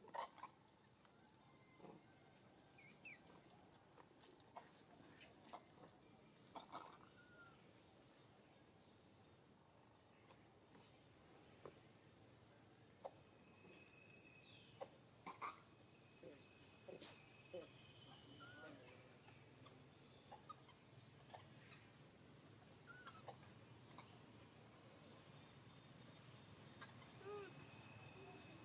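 Faint, steady high-pitched insect chirring, with scattered soft clicks and brief faint chirps over it.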